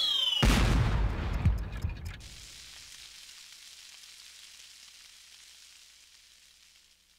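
Cartoon sound effect of a falling object landing: a descending whistle ends in a sudden loud boom about half a second in as a giant eight-ball crashes into the ground. Deep rumble and debris crackle follow for a couple of seconds, then a long fade.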